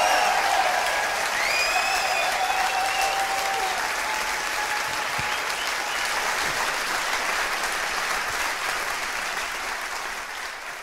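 Theatre audience applauding steadily, with a couple of high rising calls over the clapping in the first few seconds; the applause fades out near the end.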